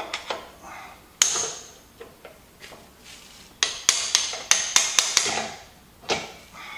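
Hammer blows on a steel punch driving out the upper pivot pin of a Bobcat T300 boom cylinder, sharp metal-on-metal strikes with a ringing tone. A few scattered blows come first, then a quick run of about eight strikes in the middle, then one more near the end.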